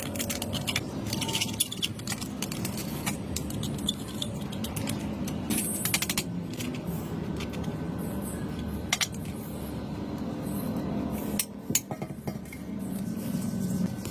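Irregular light clinks, taps and clicks of small hard objects being handled, over a steady low rumble.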